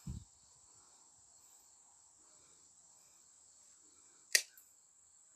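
Plier-style dog nail clippers snapping shut through a dog's toenail, one sharp click about four seconds in. A steady faint high-pitched hum runs underneath.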